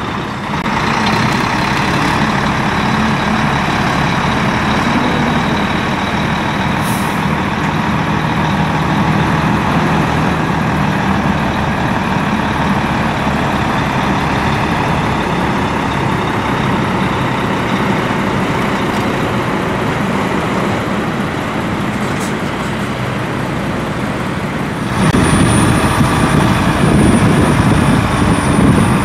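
Heavy rigid truck's diesel engine running as the three-axle lorry moves slowly past. Two brief high hisses are heard, and the engine gets louder and deeper near the end.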